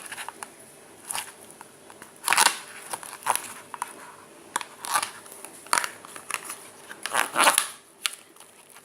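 Half-formed slime being stirred with a mixing tool: irregular sticky scrapes and crackly squelches, loudest about two and a half and seven seconds in. The mixture is still setting up after the contact lens solution was added.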